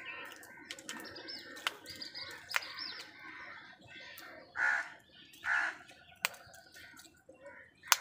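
House crows calling: two loud, harsh caws about a second apart a little past the middle, over steady chirping of small birds and a few sharp clicks.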